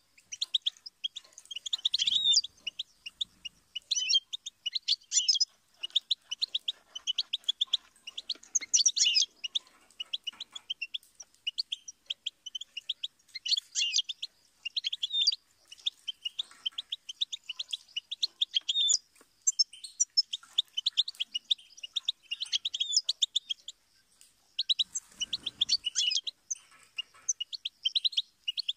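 European goldfinch song: long runs of fast, high twittering and tinkling notes, broken only by short pauses.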